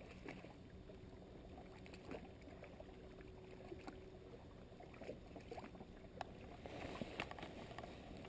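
Faint, steady low rumble of a small fishing boat sitting on the water, with a few scattered light clicks and knocks.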